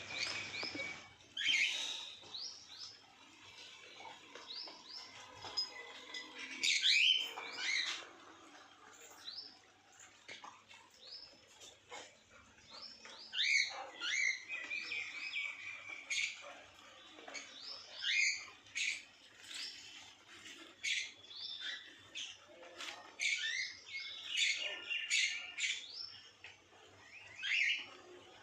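Small birds chirping, many short, quick calls repeated irregularly throughout.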